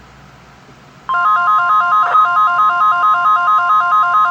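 About a second of low hiss, then the NOAA Weather Radio 1050 Hz warning alarm tone starts abruptly: a loud steady high tone with a rapid two-pitch warble stepping above and below it. It is the alert tone of a required weekly test.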